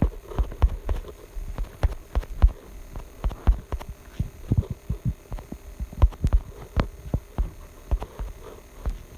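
Irregular soft thumps and clicks, a few a second, over a faint hum: handling and tapping noise picked up by a phone's microphone.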